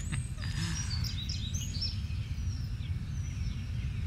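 Wild birds chirping outdoors, a run of short high calls in the first couple of seconds, over a steady low rumble.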